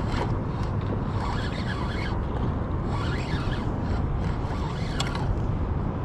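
Steady low rushing of water from a sewer discharge churning into the bayou, with a sharp click about five seconds in.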